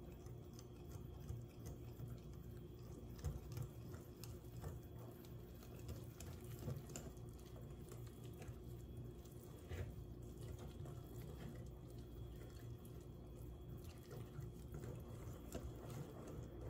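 Wire whisk stirring thick wheat flour cake batter in a glass bowl: faint wet squishing with scattered light clicks of the wires against the glass, over a low steady hum.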